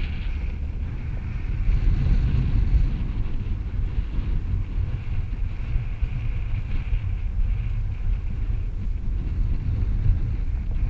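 Wind buffeting the camera microphone: a loud, uneven low rumble that gusts throughout.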